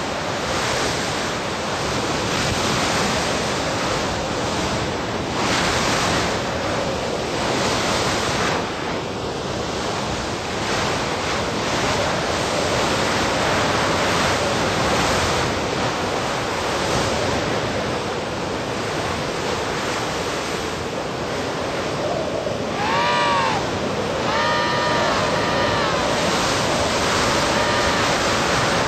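Blizzard wind blowing steadily, rising and falling in gusts. Near the end, emperor penguins call several times with short pitched, trilling calls.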